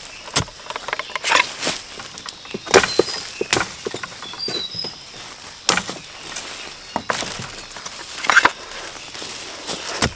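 Dry leaves and twigs crackling and snapping in an irregular run of sharp cracks, with a few louder snaps. A few short high chirps come in around the middle.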